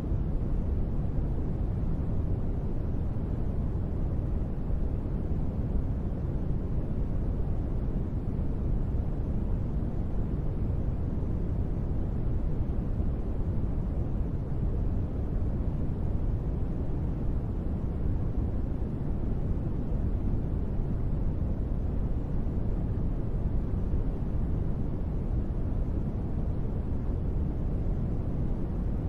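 Steady white noise sleep track, even and unchanging, with most of its strength in the low range and thinning out toward the highs, so it sounds deep rather than hissy.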